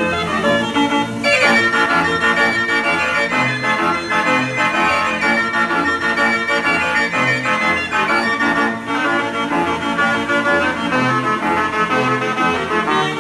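1909 Wurlitzer Monster Military Band Organ playing a lively tune: brass trumpet pipes and organ pipes over a pulsing bass line, loud and continuous.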